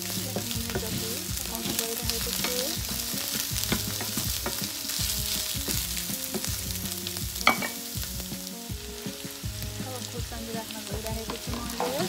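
Sliced onion and dried bitter gourd sizzling in hot oil in a non-stick frying pan, stirred with a wooden spatula that scrapes and clicks against the pan. There is one sharper knock of the spatula about two-thirds of the way through.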